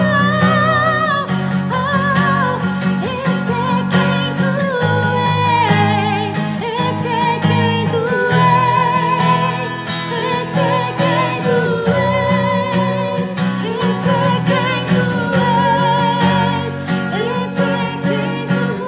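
A woman singing sustained worship-song notes with strong vibrato, over a strummed acoustic guitar.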